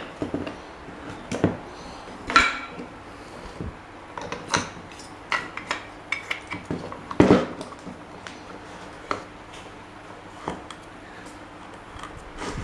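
Metal parts and tools clinking and knocking against each other and the work surface, one at a time, with a few clinks ringing briefly; the loudest knock comes about seven seconds in.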